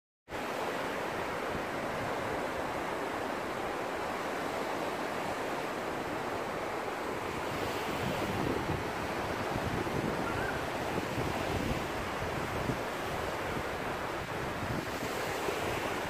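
Sea waves washing onto the beach as a steady roar, with wind buffeting the phone's microphone.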